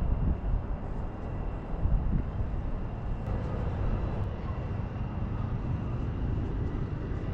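Wind buffeting the microphone over a steady distant rumble of city traffic, heard from high up on an open balcony.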